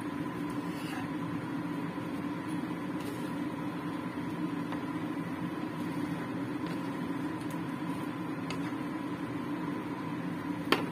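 A steady mechanical hum with a thin whine in it, under the light scraping and tapping of a wooden spatula stirring curry in a stone-coated wok, and one sharp knock near the end.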